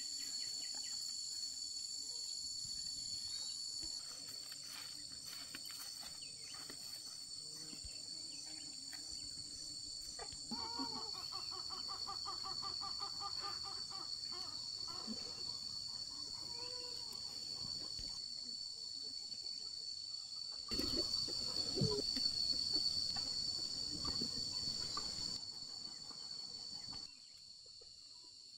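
Steady, high-pitched chorus of insects droning. About ten seconds in, a brief wavering animal call sounds over it, and a louder stretch of mixed noise follows a little after twenty seconds.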